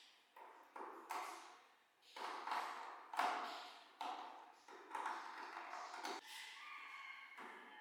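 A series of sharp taps and knocks of hard objects, about seven in all, each fading quickly, followed near the end by a ringing metallic ping that holds a few clear tones.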